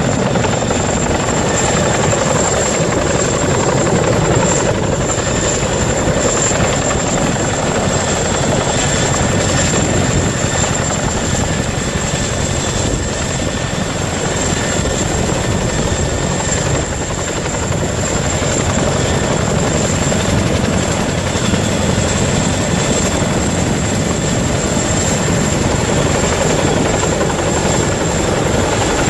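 Boeing CH-47 Chinook tandem-rotor helicopter running, a loud steady rotor and engine noise with a constant high whine over it.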